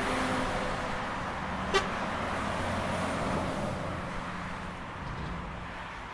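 Road traffic and a vehicle engine running steadily, slowly fading, with one short sharp click a little under two seconds in.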